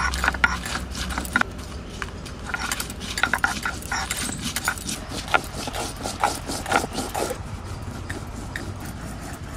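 Dried red chillies and garlic cloves being crushed and ground with a hand-held stone on a sil-nora, the flat Bengali grinding stone: irregular knocks and gritty scraping of stone on stone.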